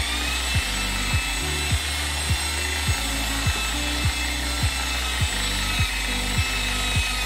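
Machine polisher running with a steady whine as its pad buffs compound over a perspex window, under background music with a steady beat of about two beats a second.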